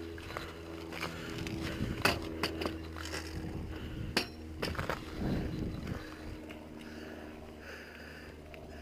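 Mountain bike rolling down a gravel track: tyres crunching over loose stones and the bike rattling, with a few sharp knocks, the loudest about two and four seconds in.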